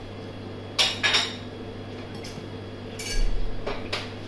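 Dishes and cutlery clinking: a few separate knocks, one ringing briefly about three seconds in.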